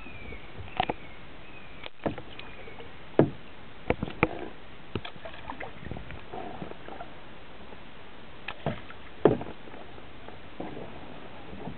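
Kayak paddling: a paddle dipping and pulling through the water, with softer sloshing strokes and scattered sharp knocks and clicks as the paddle touches the plastic kayak. The loudest knocks come about three seconds in and again about nine seconds in.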